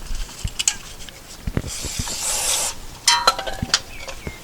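Steel brake-pad anti-rattle clip being cleaned and handled: scattered light metallic clicks and taps, a short scrubbing hiss about two seconds in, and a brief ringing metal scrape a second later.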